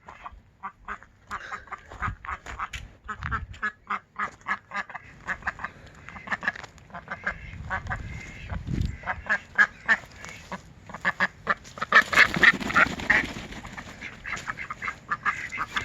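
Domestic ducks quacking in rapid, repeated short calls, several birds at once, growing louder and busier about twelve seconds in.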